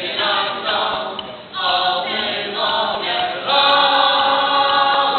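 A group of voices singing a capella in short chanted phrases, then holding one long note about three and a half seconds in.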